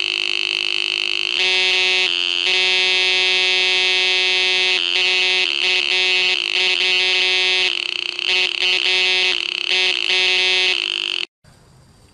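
Homemade two-transistor oscillator buzzing through a small loudspeaker, a harsh electronic pulse tone whose texture changes as its potentiometer is turned, stuttering in the later seconds. It cuts off suddenly near the end.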